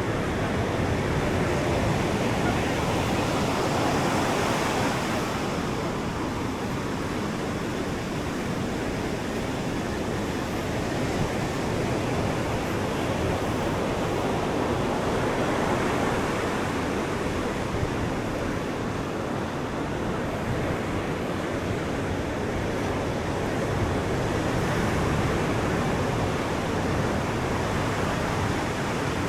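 Ocean surf washing onto a sandy beach: a steady rush of breaking waves that swells a little louder every ten seconds or so.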